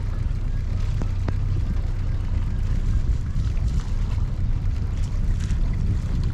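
Steady low rumble, with a couple of faint clicks about a second in.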